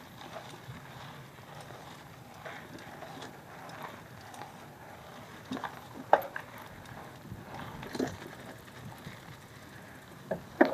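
Cube Analog hardtail mountain bike rolling along a dirt trail: a steady tyre hiss with a few scattered clunks and rattles as it goes over bumps, the loudest a little after the middle and near the end.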